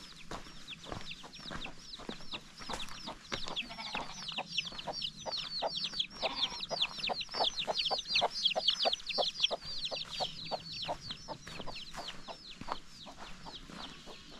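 Domestic chicks peeping in a fast, constant run of short high chirps, busiest in the middle, with a mother hen's low clucks underneath.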